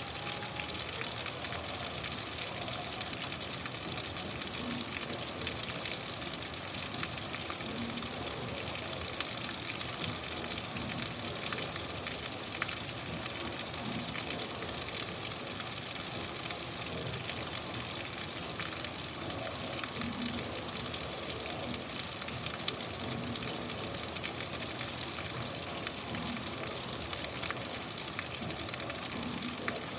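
Steady rain falling: a dense, even hiss with scattered sharper ticks of individual drops, a few of them louder.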